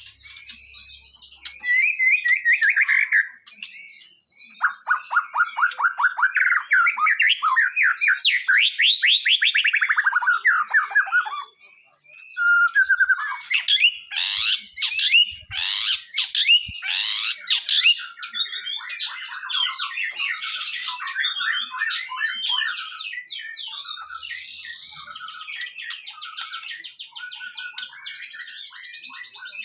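White-rumped shama (murai batu) in full song: a continuous run of loud, varied whistled phrases and fast trills that sweep upward in pitch, with a brief break about twelve seconds in.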